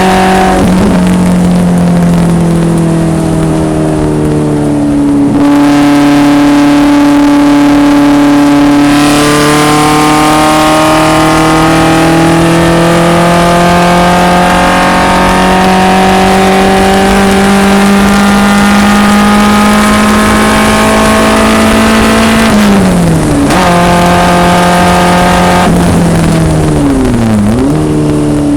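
BMW 2002 racecar's four-cylinder engine running hard on track, its pitch climbing slowly over long stretches as the car pulls, then dropping sharply about 23 seconds in and dipping and rising again near the end as the driver shifts or lifts.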